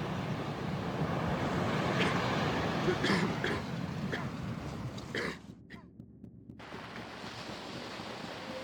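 Steady rushing, wind-like noise with a few sharp clicks between about two and five seconds in. The noise drops away briefly about five and a half seconds in, then comes back.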